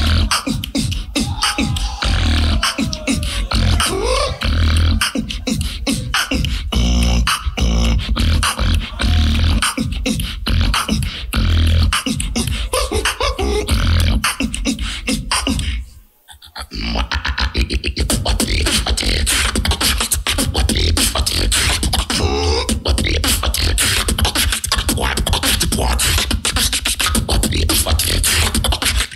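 Solo beatboxing: deep bass kicks under rapid snare and hi-hat clicks, with vocal melody lines gliding up and down in pitch in the first few seconds. About halfway through the sound cuts out for about a second, then a dense, fast pattern starts again.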